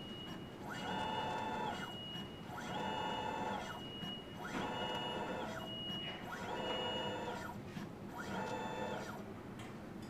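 A stage drive motor whining in about five repeated cycles, roughly two seconds apart. In each cycle its pitch rises, holds and falls, and a steady high tone sounds in the pauses between. This is the strange motor noise heard while the intermediate stage fails to move.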